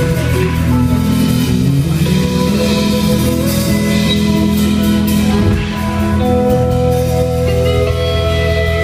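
A live rock band playing loudly: electric guitars, bass and drums.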